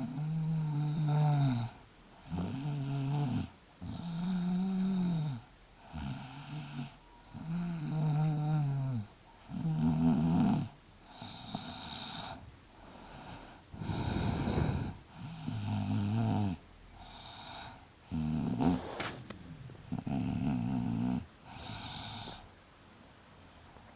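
Pregnant woman snoring in her sleep, a snore on nearly every breath, about one every second and a half. Most snores carry a tone that rises and falls, a few are rougher and breathier. A short sharp click comes about three quarters of the way in.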